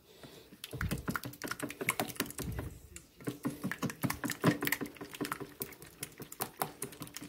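A silicone whisk beating eggs in a stainless steel bowl, its wires ticking rapidly and unevenly against the metal, with a few duller knocks of the bowl.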